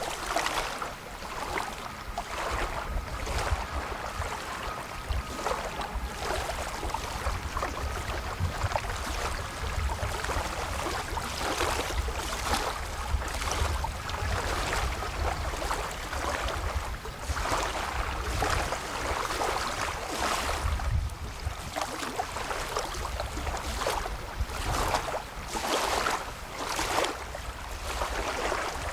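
Wind buffeting the microphone, with small lake waves lapping at the shore in irregular surges.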